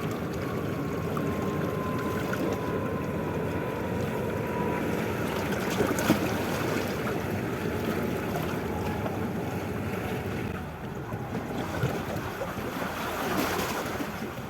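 Water lapping and sloshing against a small fishing boat's hull, with wind buffeting the microphone and a few sharp knocks.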